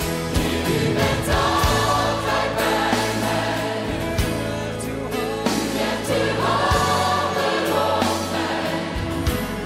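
Dutch Christian worship song sung by a choir over a band, with a sustained bass line and regular drum hits.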